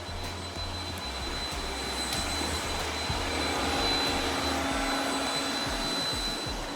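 Robot vacuum running: a steady whir with a thin, constant high whine over it.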